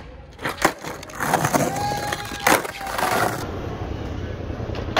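Skateboard wheels rolling on stone paving, with several sharp clacks and knocks of the board as tricks are popped and landed. The loudest knock comes about halfway through.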